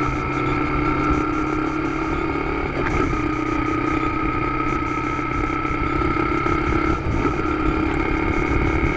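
Motorcycle engine running steadily while riding at road speed, over a low rush of wind and road noise. The engine note breaks briefly twice, about three and seven seconds in.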